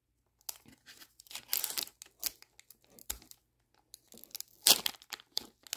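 Foil Pokémon booster pack wrapper being torn open by hand, crinkling and crackling in uneven bursts, loudest about a second and a half in and again near the end.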